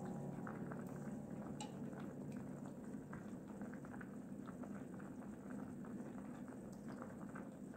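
Creamy broccoli and mushroom soup simmering in a pot: faint, irregular bubbling and small pops from the thick liquid.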